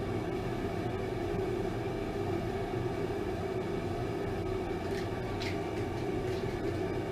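Steady mechanical drone of shop equipment running, even and unchanging, with a couple of brief hisses about five seconds in.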